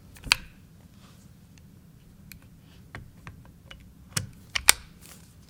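Metal clicks and clacks of a Starr single-action percussion revolver being put back together by hand, as the cylinder is seated and the hinged frame brought down over it. There is one sharp click just after the start, light scattered ticks, and a quick run of three louder clacks about four seconds in.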